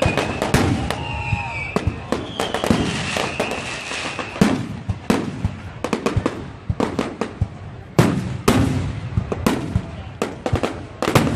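Fireworks display: a dense run of shell bursts and crackling bangs, with several louder booms standing out. Whistling tones sound over the bangs in the first few seconds.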